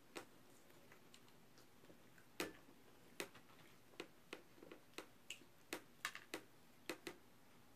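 Eating sounds from fried chicken: a dozen or so short, sharp clicks and crackles at irregular intervals as the crispy pieces are chewed and pulled apart by hand, coming more often in the second half.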